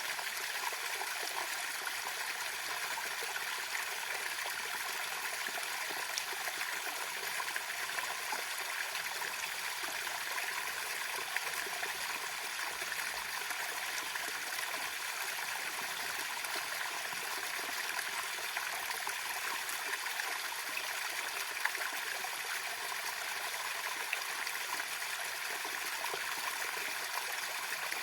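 Small waterfall, water splashing and trickling steadily.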